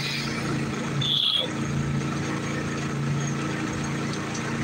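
An engine on a bowfishing boat running steadily with an even low hum, and a brief high squeak about a second in.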